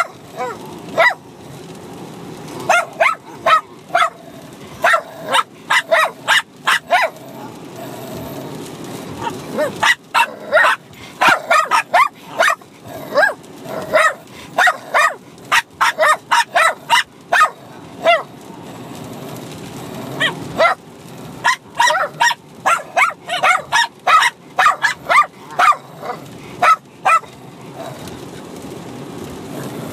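Two Bichon Frises, a six-month-old puppy and an older dog, barking at each other in fast irregular runs of short sharp barks while play-fighting, with a couple of brief lulls. Inside a car's cabin.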